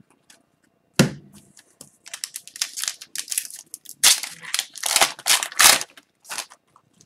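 Wrapper of an Upper Deck hockey card pack being torn open and crinkled by hand: a dense run of sharp crackles over several seconds, loudest toward the end, after a single short knock about a second in.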